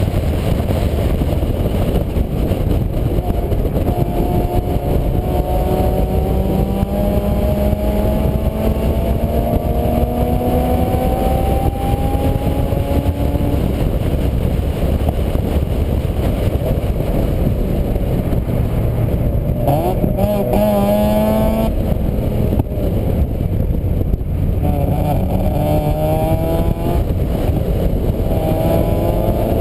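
Vehicle engine rising in pitch as it accelerates, heard under a heavy steady rumbling noise on a GoPro's microphone. There is one long climb in the first half and two shorter ones in the second.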